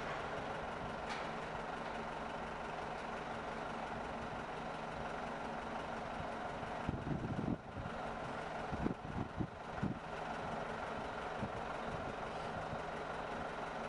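An engine idling steadily with an even hum, with a few brief louder handling sounds around the middle.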